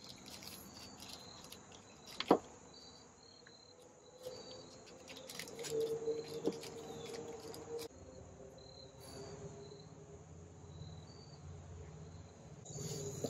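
Hard plastic action-figure parts being handled and fitted together, with one sharp click about two seconds in. Faint short high insect chirps repeat in the background.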